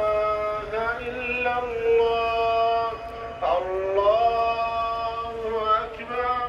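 A man's voice chanting a slow melodic line with no instruments, holding long notes and sliding between them, with short breaths about halfway through and near the end.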